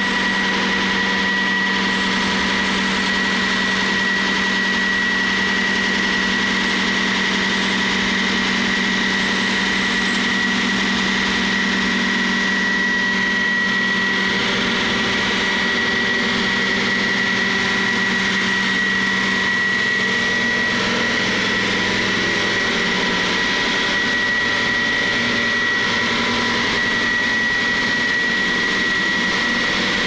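Steady running of construction-site machinery: an engine-like hum with a constant high whine over it.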